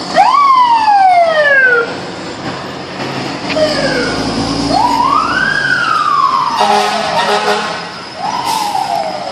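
Fire truck siren sounding in three wails, each rising quickly and then falling away slowly. A lower, blaring horn-like blast comes in about two-thirds of the way through.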